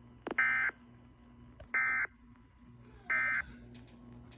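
Emergency Alert System SAME end-of-message data bursts over a weather-radio receiver: three short, identical warbling digital bursts about a second and a half apart, marking the close of the severe thunderstorm warning. A low hum from the receiver runs underneath.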